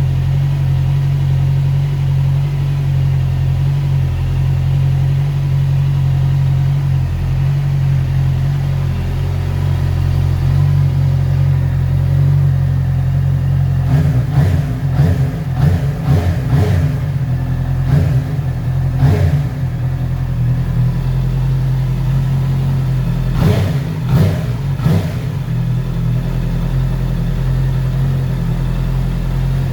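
Motorcycle engine idling through its freshly refurbished exhaust, with a run of quick throttle blips about halfway through and three more a few seconds later, then settling back to a steady idle.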